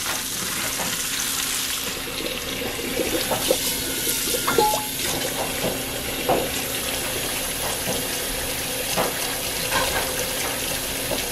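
Kitchen faucet running cold water steadily into the sink while hot pasta water is poured off cooked fettuccine into a stainless steel colander. A few light knocks sound over the running water.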